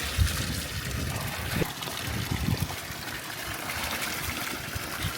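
Steady rushing of running water from a stream.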